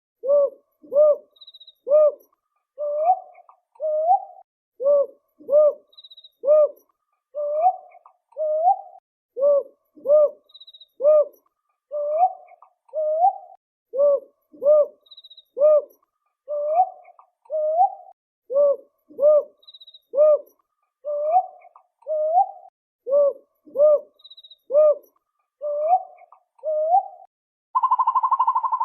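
Owl hooting in a repeated series of phrases, each a few short hoots followed by longer slurred hoots, the same phrase recurring about every five seconds. Near the end a different, louder, continuous wavering call starts.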